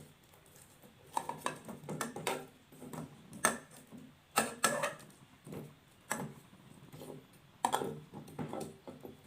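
Utensils knocking and clicking against a small dish in irregular strikes, several close together at a time.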